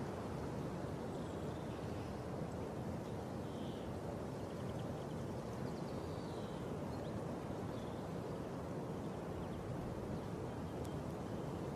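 Steady low outdoor rumble with faint bird chirps and trills now and then.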